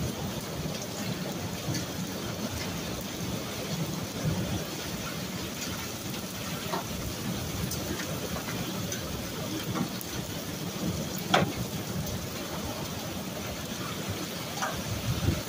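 Heavy rain pouring steadily in a severe thunderstorm: a gully washer. A few sharp ticks stand out from the downpour, the loudest about eleven seconds in.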